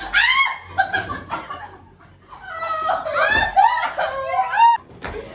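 Several women laughing and squealing together, in two bursts with a quieter lull between them.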